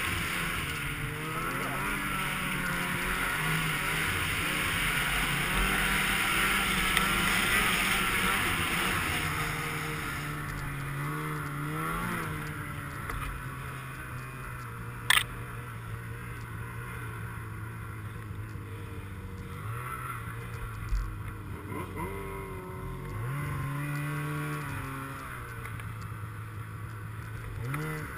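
Snowmobile engine running while riding, its pitch rising and falling with the throttle. A rushing noise that sits over it fades about ten seconds in, and there is a single sharp click about fifteen seconds in.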